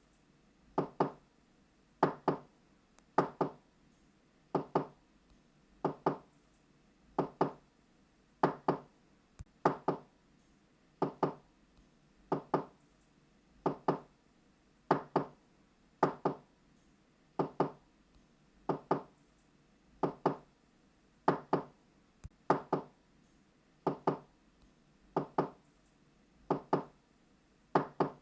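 A door being knocked on in quick double knocks (knock-knock), the pair repeating evenly about every second and a quarter.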